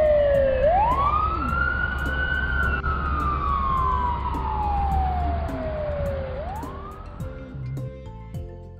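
Fire engine siren sound effect in a slow wail: one long rise to a high pitch that sinks slowly for several seconds, then rises again and fades out near the end. A low rumble sits under it for the first half, with background music behind.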